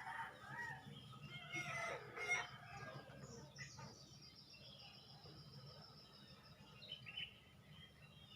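A rooster crowing in the first two seconds or so, then a small bird calling with a long run of rapid, evenly spaced high notes, over a faint steady low hum.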